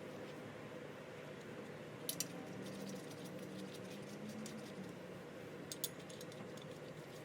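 Lug nuts being started by hand on the wheel studs: two short bursts of small metallic clicks, about two seconds in and again near six seconds, over a steady low hum.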